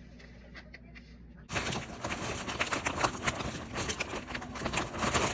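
Crawfish shells clattering as they are poured from a bag into the boil pot, a dense rattle of many small knocks that starts suddenly about a second and a half in.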